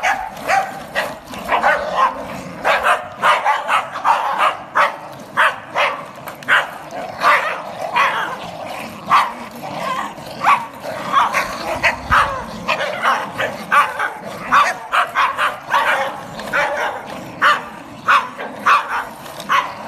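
A pack of small terriers, Scottish terriers with a Sealyham and a Jack Russell, yapping and barking over and over in quick succession, two or three barks a second with no let-up, excited play barking.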